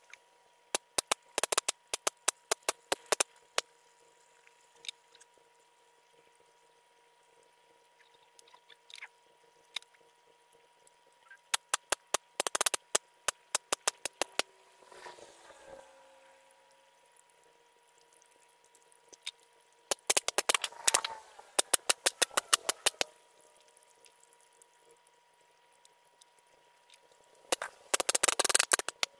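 Four bursts of rapid, sharp clicks, each one to three seconds long and spaced several seconds apart, over a faint steady hum.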